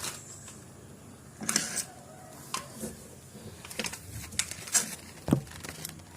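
Small plastic items being handled: a scattered series of short clicks, taps and rustles a second or so apart, as the USB hub and its cable are picked up and set down.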